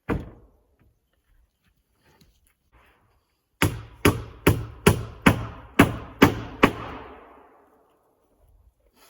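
Hammer blows: a single strike, then a run of eight quick, evenly spaced strikes, each ringing briefly.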